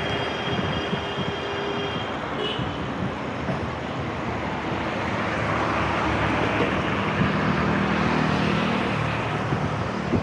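Street traffic heard from a moving bicycle: cars running close by over a steady rush of noise. A low engine hum grows louder in the second half.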